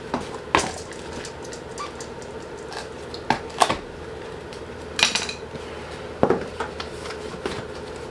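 Scattered sharp knocks and clicks of hand work on the car's bumper parts, plastic and tools clattering now and then, over a faint steady hum.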